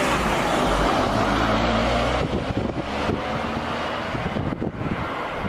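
A loud engine running under heavy wind rush on the microphone. A low engine hum weakens about two seconds in.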